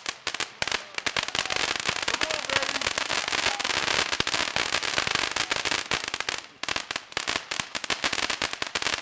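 Fireworks crackling: a dense, rapid run of small pops and bangs, firecracker-like, with a brief lull about six and a half seconds in before the crackling resumes.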